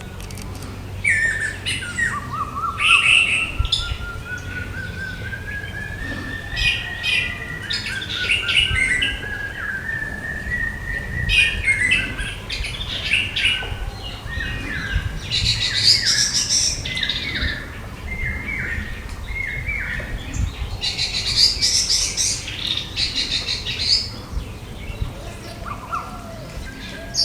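Orange-headed thrush singing: a long run of short, varied whistled and chattering phrases, with denser rich bursts about midway and again later. A thin steady tone slowly rises in pitch underneath during the first half.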